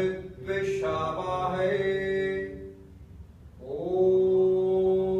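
Men chanting a mantra in long held notes, with a breath about three seconds in before the next long note begins.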